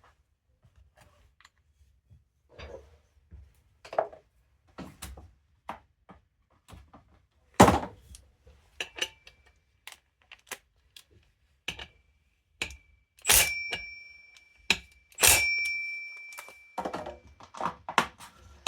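Small metal parts and tools clicking and knocking on a workbench during chainsaw clutch work, with one loud knock about eight seconds in. Near the end, two sharper strikes set a piece of metal ringing with a steady high note for a couple of seconds.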